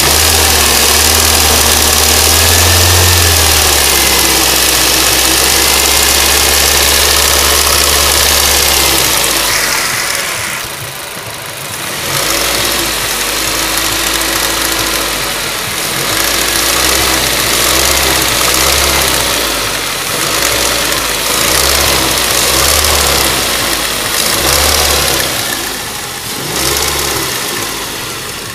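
Ford Duratec HE 1.8 inline-four engine running with a knocking, clattering noise whose cause is unknown to the owner. It is loudest for about the first nine seconds, then drops and runs unevenly.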